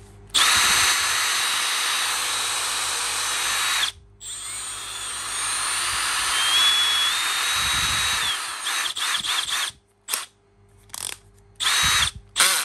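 Milwaukee 2801 18V brushless cordless drill/driver being run on the trigger: one steady run of about three and a half seconds, a short stop, then a second run whose whine rises in pitch and holds for about four seconds. Several short trigger bursts follow near the end.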